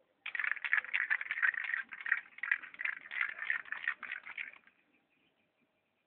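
Aerosol spray-paint can being shaken hard, its mixing ball rattling rapidly for about four seconds, then stopping.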